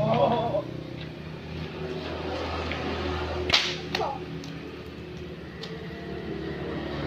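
A pecut, a long braided Ponorogo whip, cracked sharply once about halfway in, followed by a weaker crack just after and a few faint lash clicks. A motorcycle engine drones in the background and fades out around the middle.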